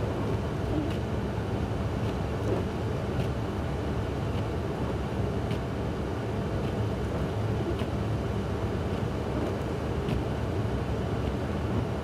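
Steady low rumble of a running vehicle and storm wind heard from inside the cab, with a faint tick about once every second or so.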